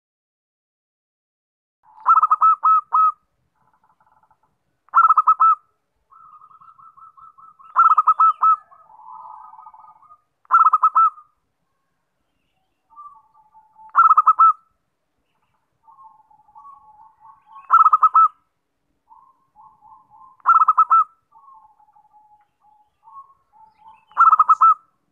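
Zebra dove (perkutut) cooing: a loud phrase of rapid staccato coos about every three seconds, eight in all. Quieter, softer runs of coos fill the gaps between them.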